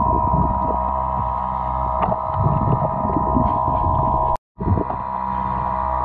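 Sound picked up by a camera held underwater: a steady hum with a strong high tone over a low rumble, with scattered small clicks and knocks. The sound cuts out for an instant about four and a half seconds in.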